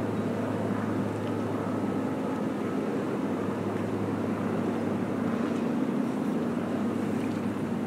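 A steady low engine hum over general outdoor noise, unchanging throughout.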